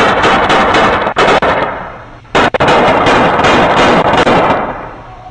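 Many gunshots in rapid succession picked up by a Ring doorbell camera's microphone, loud enough to distort. One volley dies away just under two seconds in, and a second volley starts a little later and fades out after about two seconds.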